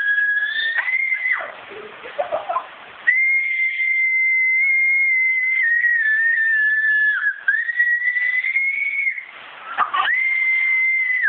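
A loud, high, shrill whistle-like squeal, held for several seconds at a stretch, wavering slightly in pitch and breaking off a few times.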